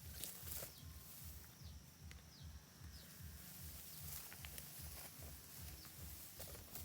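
Faint outdoor sound with short high chirps that fall in pitch, repeated at irregular intervals, like a small bird calling. Scattered light clicks and a low rumble lie underneath.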